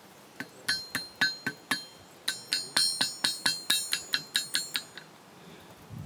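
Hand hammer striking a red-hot iron bar on an anvil, about four ringing blows a second with a short break about two seconds in, stopping about five seconds in. The blows are squaring a bend in the bar toward a 90-degree angle.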